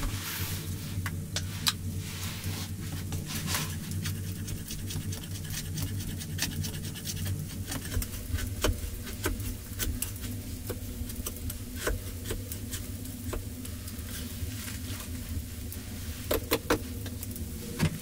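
Scattered sharp knocks and scrapes as a tool digs rotten wood out of the top of a hollow log stump, with a cluster of louder knocks near the end, over a steady low hum.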